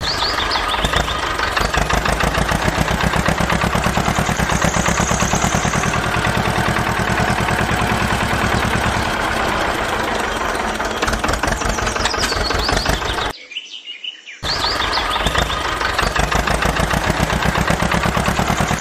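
Tractor diesel engine running with a fast, steady chugging knock. It drops out for about a second roughly thirteen seconds in, then resumes. Faint bird chirps sound above it.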